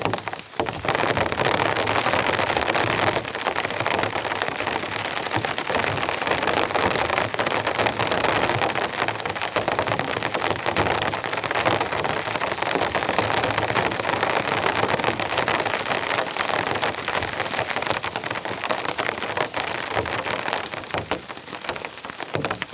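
Heavy rain falling steadily, a dense patter of many drops.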